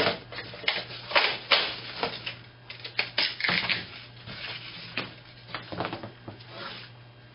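Old calfskin banjo head, already scored around the rim with a razor blade, being pulled and peeled off the banjo pot by hand: irregular crackles, clicks and short tearing rasps of the dry skin, busiest in the first half and thinning out near the end.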